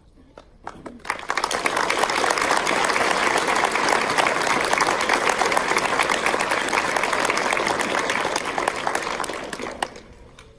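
Audience applauding a choir: a few scattered claps, then full, dense applause from about a second in, dying away near the end.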